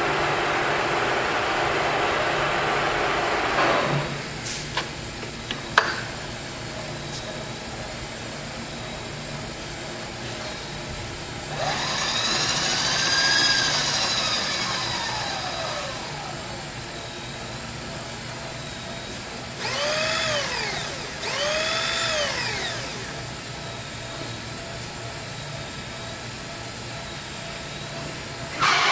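Electric power feed motors on a vertical milling machine driving the table and knee: a steady run that stops about four seconds in with a couple of clicks, then a motor whine that rises and falls in pitch once around twelve seconds and twice more near twenty seconds, over a steady machine hum.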